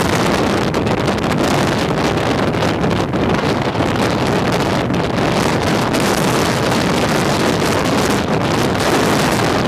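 Hurricane-force storm wind blowing hard across the microphone: a loud, steady rush of wind noise without let-up.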